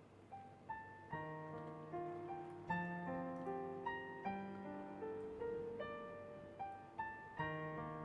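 Soft background piano music: a slow melody of single notes and chords, each note fading after it is struck.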